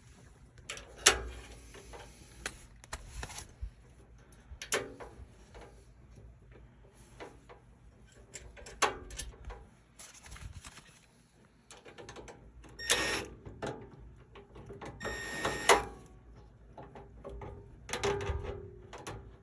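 Hands working a new capacitor into its mounting inside an air conditioner's indoor unit: irregular metallic clicks, taps and scraping, loudest about a second in and again about three quarters of the way through.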